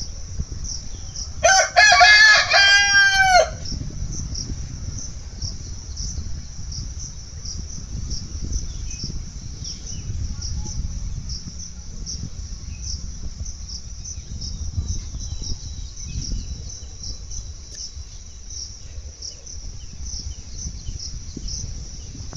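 A rooster crows once, about a second and a half in, a single crow lasting about two seconds. Behind it, insects keep up a steady, pulsing high chirr.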